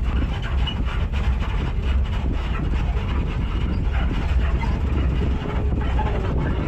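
Off-road vehicle driving along a rough forest dirt track: a steady low engine rumble with the body rattling and knocking over the bumps.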